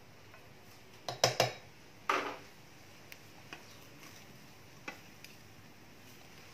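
Serving spoon and wooden spatula knocking and scraping in a pan of cooked biryani rice: a quick cluster of sharp clacks about a second in, a longer scrape just after two seconds, then a few light taps.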